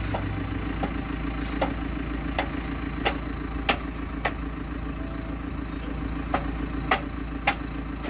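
JCB 3CX backhoe loader's diesel engine idling steadily, with about nine sharp knocks at uneven intervals over it.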